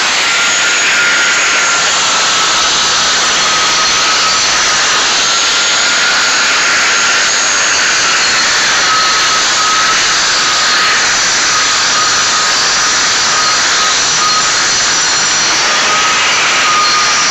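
Electric power sander running against a concrete surface: a loud, steady grinding hiss over a motor whine that wavers slightly in pitch.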